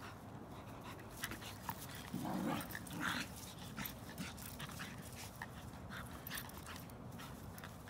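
A playful, over-excited dog making a couple of short vocal sounds about two and three seconds in, amid faint scattered clicks.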